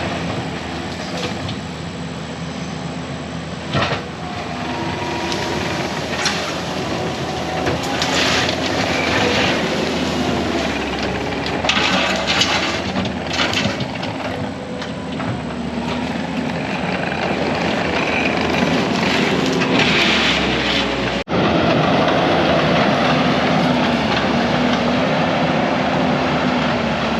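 Kubota SVL75 compact track loader's diesel engine running steadily under load while it pushes through forest, with repeated sharp cracks of branches and brush breaking.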